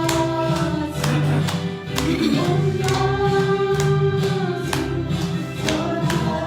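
Group of voices singing a gospel hymn with instrumental accompaniment and a steady percussion beat of about two strokes a second.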